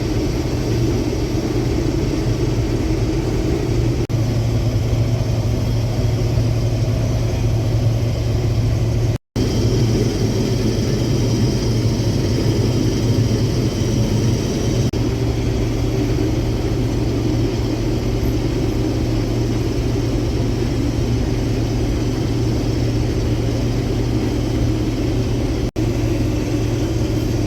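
Combine harvester running steadily while cutting soybeans, heard from inside the cab as a constant engine and machinery drone. The sound cuts out for an instant about nine seconds in.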